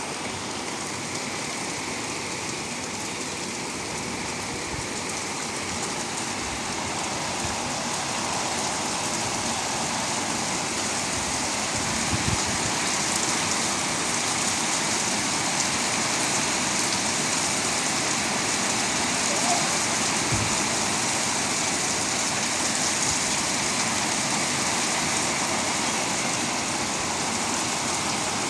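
Rain falling steadily, an even hiss of water that gets a little louder over the first dozen seconds and then holds.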